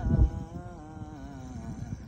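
A person singing a cappella, holding one long, gently wavering note that sags a little near the end. A low thump sounds right at the start.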